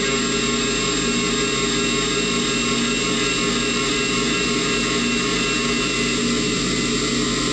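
Haas Mini Mill 2 CNC vertical mill cutting a 6 mm steel plate under flood coolant: the spindle and the cut give a steady machine whine with several held tones over a constant hiss.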